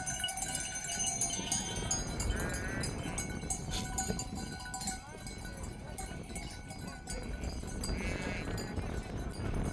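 Flock of sheep with neck bells: bells clinking throughout and a few short, quavering bleats, one about eight seconds in.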